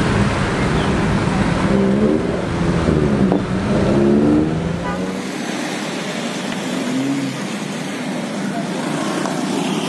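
Road traffic at close range: motorbike and truck engines running and revving, with rising and falling engine pitch for a few seconds. About halfway through, an edit cuts to lighter passing traffic.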